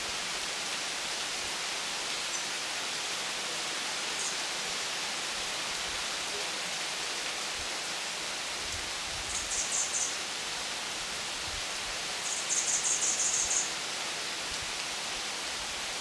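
Steady hiss of rain falling. Twice in the second half it is joined by a short burst of high, fast-pulsed chirping.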